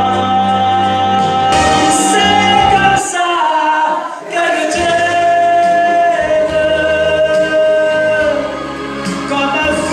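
A solo voice singing long held notes into a microphone, with live keyboard accompaniment; the low accompaniment drops out for a moment near the middle, then returns.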